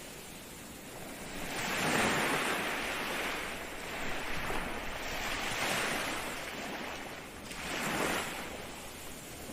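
Ocean waves breaking on the shore, several surges of surf rising and falling over a steady background wash.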